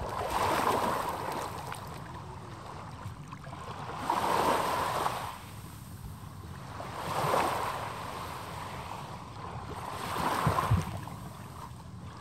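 Small waves washing in on a sandy shore: four swells of surf about three seconds apart.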